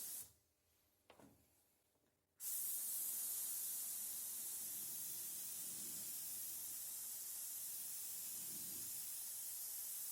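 A steady hiss that cuts out about a quarter of a second in and comes back about two and a half seconds in.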